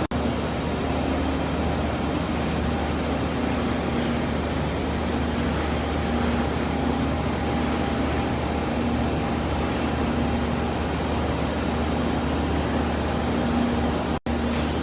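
Steady mechanical hum and whir of running machinery, with a constant low drone and a faint wavering tone above it. The sound drops out abruptly for a moment near the end.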